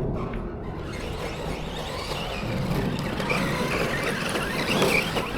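Electric motor of an Arrma Vorteks 223S RC truck whining, its pitch wavering up and down with the throttle over a steady noisy hiss of tyres and wind, most clearly in the second half.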